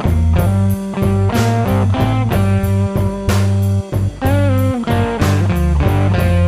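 Blues-rock backing music with electric guitar over a steady bass and drum beat; a bent guitar note rises and falls about four seconds in.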